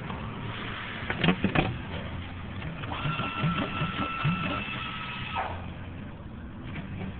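A few sharp metal clicks about a second in as a license plate is worked loose by hand, then a steady high whine lasting about two and a half seconds, all over a low steady hum.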